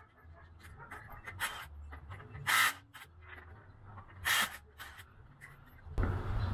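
Lug nuts being worked off a car's front wheel with a hand wrench: a few light clicks and two brief, louder rattles about two seconds apart. Near the end a louder steady rumble comes in.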